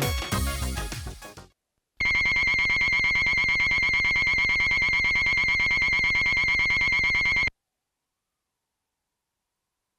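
Music fades out, then an analog synthesizer sounds a recreation of King Ghidorah's cry: a high, rapidly trilling ring like a telephone bell, held steady for about five seconds before it cuts off suddenly.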